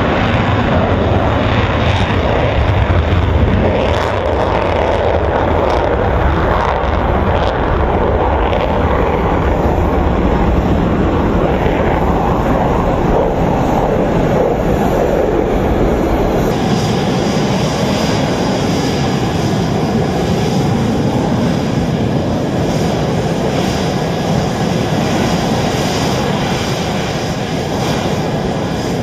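Loud, continuous jet engine noise from F-16 fighters taking off and climbing away, with an abrupt change in its character about halfway through and a slight easing in level near the end.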